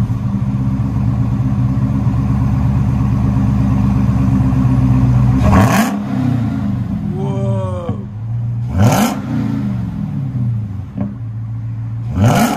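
Dodge Charger Hellcat's 6.2-litre supercharged Hemi V8, with factory X-pipe and mid mufflers and the rear mufflers deleted, idling steadily and then blipped three times, each rev falling quickly back to idle.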